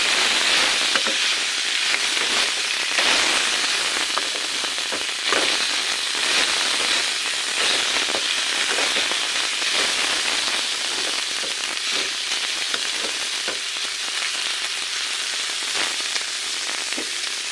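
Food frying in hot oil in a pan, a steady sizzle with many small crackling pops.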